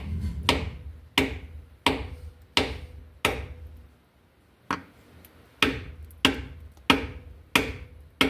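Heavy hammer blows on a wooden board laid over an engine part to drive it into place, about a dozen steady strikes with a short pause midway. The part is being driven in crooked.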